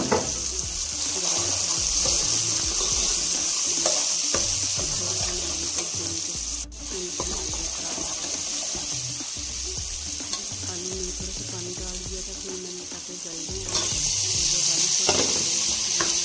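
Tomato, onion and spice masala frying in oil in a steel pot, sizzling steadily, with a steel ladle stirring and knocking against the pot now and then. The sizzle drops out for a moment about seven seconds in and is louder over the last couple of seconds.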